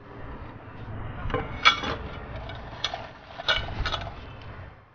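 Stainless steel bowls clinking and knocking with a short metallic ring, three or four times, as they are handled on a steel counter.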